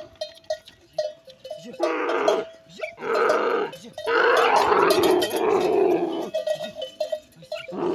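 Dromedary camels making loud, rough grunting calls in three bursts, the last about two seconds long, as a bull mounts a cow and forces her down for mating. Between the calls, a small bell rings in short repeated tings.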